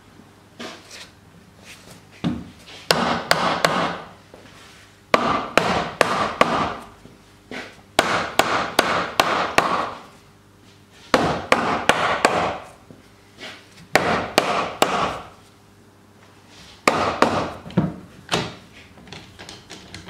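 A mallet knocking the glued joints of a wooden window frame home, in about six bursts of quick, sharp blows on the wood with short pauses between.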